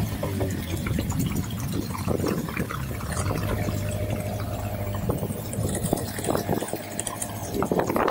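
A small motorboat's engine running steadily with water splashing and sloshing against the hull, the engine hum dipping briefly about two-thirds of the way through.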